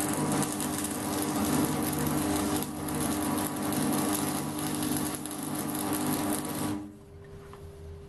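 AC stick (arc) welder laying a weld on a steel bracket: the arc crackles and sizzles evenly with a steady hum beneath it, then stops sharply about seven seconds in as the arc is broken, leaving only a faint hum.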